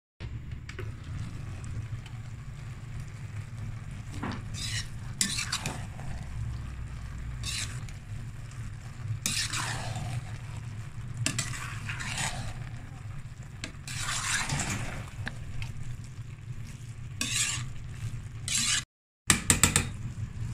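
A spoon stirring and scraping cooked prawn rice in a rice cooker's metal inner pot, in separate strokes every second or two, over a steady low hum. A few sharp taps near the end are the loudest sounds.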